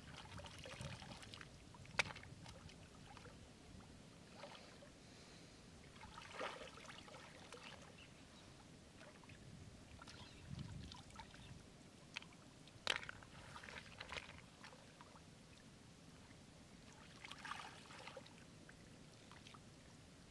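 Gloved hands sloshing and splashing in shallow muddy water while feeling through the mud for snails, in short bursts a few seconds apart. Two sharp clicks stand out, one about two seconds in and one a little past the middle.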